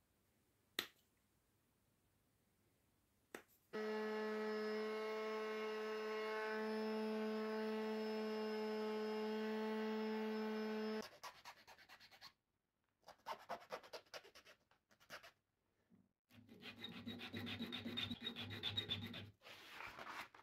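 Bass tagelharpa horsehair string bowed: after a couple of small clicks, one steady note is held for about seven seconds. It is followed by shorter, scratchy, uneven bow strokes and a final rough pitched passage.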